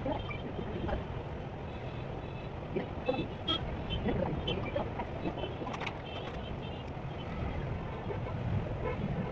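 Room background noise: a steady low rumble with faint scattered taps and clicks.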